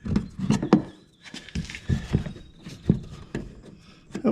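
Irregular knocks, thumps and rustling of a 2022 Ram 2500's plastic inner fender liner being pushed and tapped back into place by hand, with a few sharp knocks among them.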